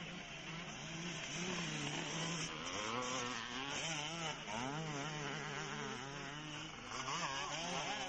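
Motocross bike engines revving hard, their buzzing pitch rising and falling again and again as the riders open and close the throttle. Several bikes overlap, most busily from about three to five seconds in and again near the end.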